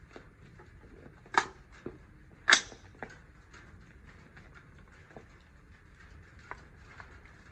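Rifle magazine being seated into the magazine well: two sharp clacks about a second apart, with lighter clicks of handling after each and near the end.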